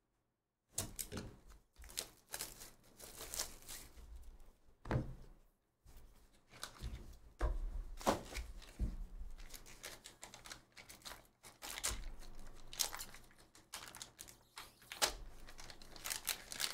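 Plastic shrink wrap being cut and torn off a trading-card box, the box opened, and a foil card pack handled with crinkling: a run of irregular rips, rustles and small clicks.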